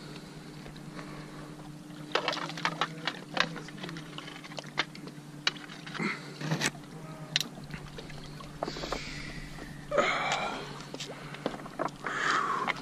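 Large channel catfish being scooped out of the water in a landing net and hauled onto shore rocks: water splashing and dripping, with scattered sharp knocks and clicks of the net and rocks.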